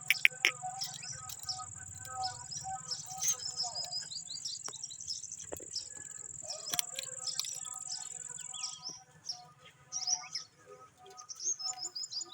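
Indian ringneck parrots chirping in quick, short high calls and rapid squeaky notes. A steady high-pitched whine runs underneath and stops about three-quarters of the way through.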